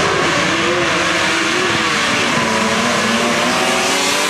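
Racing ATV engine at full throttle during a sand drag run, its pitch wavering and sagging, then climbing again near the end.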